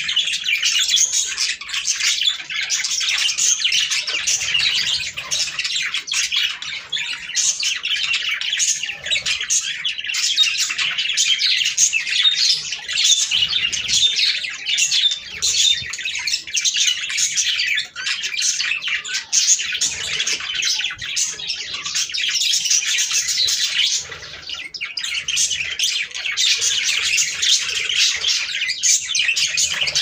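A flock of budgerigars chattering and warbling, a dense unbroken stream of quick high chirps and squawks with a brief lull about three quarters of the way through.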